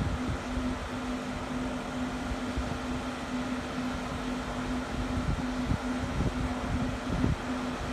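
A steady mechanical hum, one held tone over an uneven low rumble.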